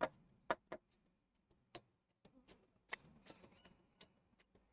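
Hand pin vise with a tungsten micro drill bit being twisted into a plastic model ship's hull to drill out a porthole: faint, irregular clicks and ticks, the loudest about three seconds in.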